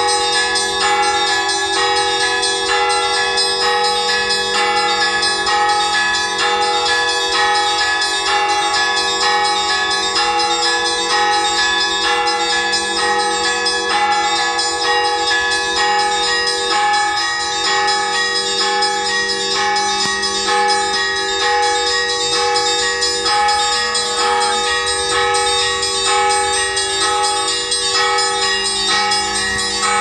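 Orthodox church bells ringing in one unbroken peal: rapid repeated strikes, with the ringing tones sustaining and overlapping.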